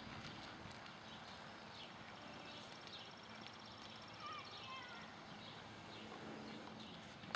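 A Quarter Horse gelding's hooves clopping faintly, with a bird chirping briefly around the middle.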